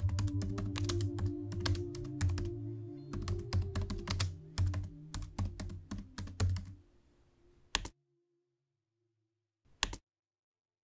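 Typing on a computer keyboard: a quick, uneven run of key clicks that stops about seven seconds in, then two single key clicks near the end.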